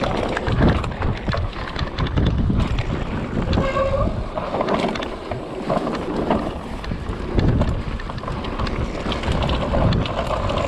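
Mountain bike riding downhill on a rough dirt singletrack: a constant rumble of tyres on dirt, with many short rattles and knocks from the bike, and wind buffeting the microphone.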